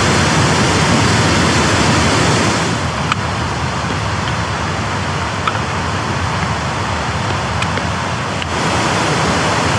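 Rushing white water of Stickle Ghyll, a mountain stream running high after a night of heavy rain: a steady hiss of tumbling water that drops a little in level about three seconds in and comes back up near the end.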